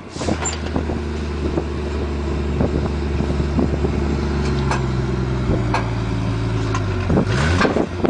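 Diesel engine of a big New Holland four-wheel-drive tractor working in mud, running steadily, then revving up about seven seconds in.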